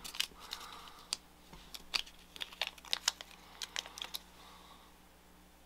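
Small sharp clicks and ticks from fingers handling a fly on the hook and pressing an 8 mm eye onto its glued side, about a dozen irregular clicks that stop about four seconds in.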